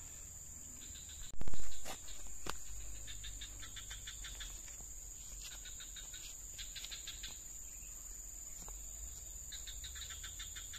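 Insects chirping in short trains of rapid pulses, repeating every second or so over a steady high-pitched insect drone. A brief loud burst of rough noise comes about one and a half seconds in.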